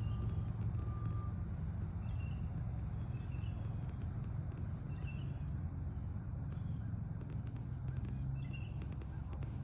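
Outdoor ambience: a steady low rumble under a constant high-pitched hum, with a few short bird chirps scattered through.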